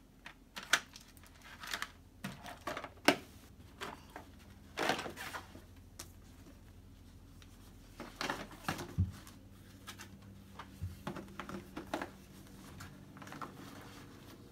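Small sharp clicks and clatter of school supplies being dropped into a plastic pencil box, loudest in the first few seconds, then rustling and soft knocks as a folder and the box are pushed into a backpack.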